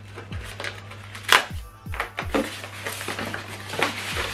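Background music with a deep bass beat, over the handling of polystyrene foam packaging: a sharp snap just over a second in, then scraping and rustling as the foam block is worked open.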